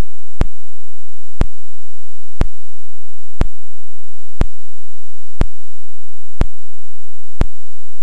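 Sharp clicks repeating evenly once a second, eight in all, over a faint steady hum and hiss.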